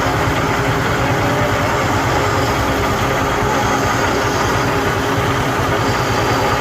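A machine or engine running steadily, a constant hum with a low drone that does not change.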